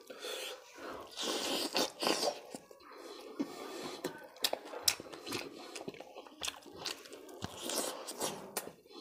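Close-miked eating by hand: fingers breaking apart a piece of curried fried rohu fish, then chewing and lip smacking, with many sharp little clicks throughout.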